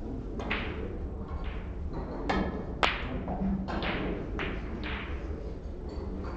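A series of about seven sharp knocks and clicks over the first five seconds, irregularly spaced, each with a short ringing tail, the loudest about three seconds in, over a steady low hum.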